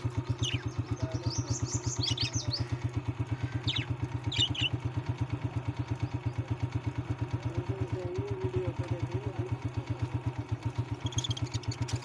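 A small engine runs steadily at idle with a rapid, even beat of about six pulses a second. Small birds give short, high chirps over it, several in the first five seconds and again near the end.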